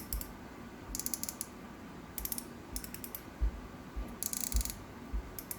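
Front drag knob of a Penn Fierce II 2500 spinning reel being turned to tighten the drag, clicking quickly in several short runs, with a few soft handling knocks.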